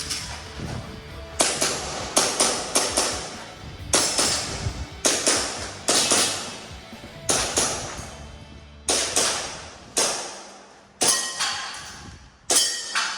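Airsoft pistol fired through an IPSC Action Air stage: a string of about twenty sharp cracks, some in quick pairs and some singly, each trailing off briefly, with short pauses between groups.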